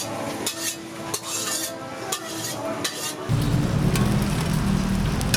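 Metal spatula scraping and clattering in a wok as food is stir-fried, with a light sizzle. About three seconds in, a loud, steady low rumble cuts in suddenly.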